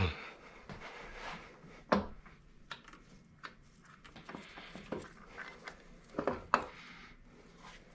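Sparse clicks and light metal knocks of hand tools and parts being handled while unbolting engine components. The sharpest knocks come about two seconds in and again around six and a half seconds.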